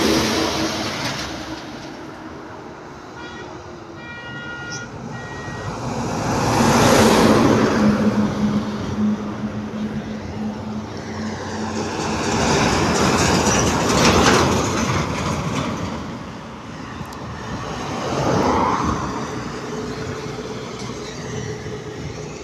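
Heavy trucks passing one after another on a highway, each engine and tyre noise swelling up and fading away, three times over. A vehicle horn sounds in several short toots about three seconds in.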